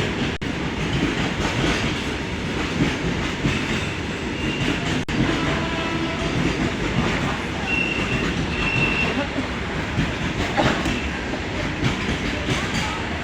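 A passing train's wheels running over the rails, a steady rumbling noise, with a few brief faint high tones partway through.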